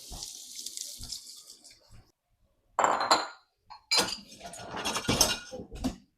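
Kitchen sounds: a short hiss of running water at the start, then several clinks and scrapes of metal utensils against dishes and pans.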